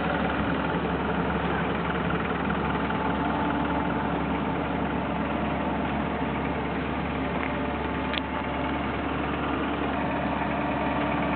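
Small plane's engine running with a steady drone and low hum, its level unchanging; a faint click about eight seconds in.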